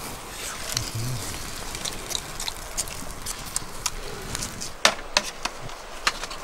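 Wood fire crackling, with many small pops and scattered sharper snaps, the loudest about five seconds in.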